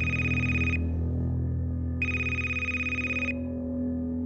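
Mobile phone ringing with an incoming call: an electronic ring tone in bursts of about a second, roughly two and a half seconds apart, over a low steady drone.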